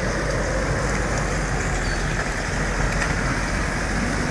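Off-road vehicle driving on a dirt mountain trail: steady engine rumble mixed with tyre and road noise.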